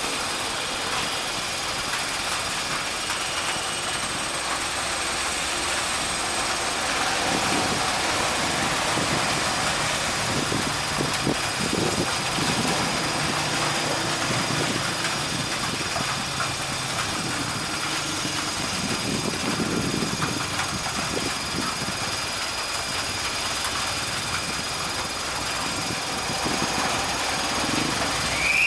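Heavy rain hissing steadily, with the diesel engine of a GM GR-12 locomotive running as it pulls slowly out with its train. Its horn starts right at the very end.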